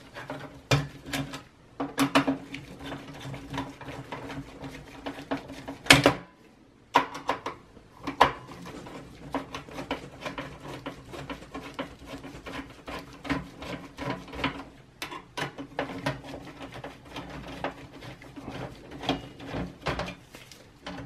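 Phillips screwdriver working the CPU cooler's mounting screws out of a workstation: a run of small scratchy clicks and ticks of metal on metal, with a sharper click about six seconds in.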